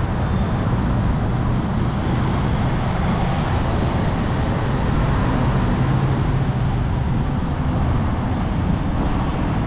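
Steady road traffic noise: motor vehicles running along a busy city road, with a constant low rumble.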